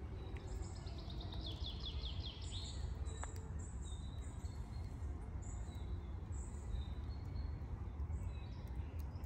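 Small birds singing: a quick run of chirps stepping down in pitch over the first few seconds, then scattered short high chirps, over a steady low rumble.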